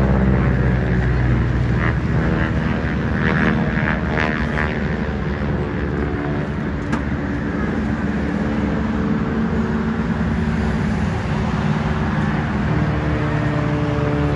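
Steady engine drone, one low hum with overtones holding nearly the same pitch throughout, with a single sharp click about seven seconds in.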